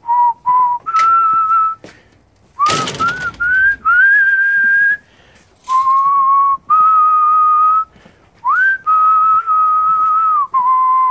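A person whistling a slow tune in long held notes with small slides between them. About three seconds in, a short rush of noise sounds under one note.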